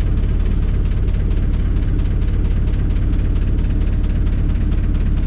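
Renault 651 tractor's diesel engine running steadily at low revs, with a fast even pulse and a steady hum.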